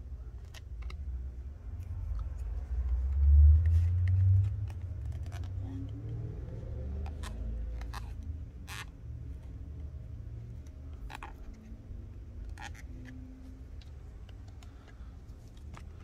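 Handling noise of a Samsung Galaxy A42's plastic back cover being turned over in the hands: scattered small clicks and taps over a low rumble that is loudest about three to four seconds in.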